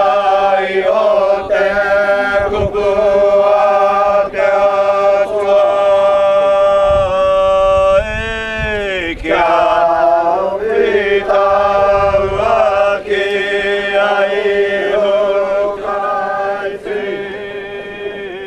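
A group of voices chanting together in a traditional Polynesian style, holding long sustained notes, with a sliding fall in pitch about halfway through; the chant fades down near the end.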